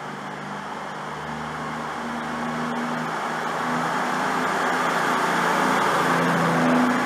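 CrossCountry Voyager diesel multiple unit moving along the platform, its underfloor diesel engines humming with a steady low note over the rumble of the coaches, getting louder as the cars come by.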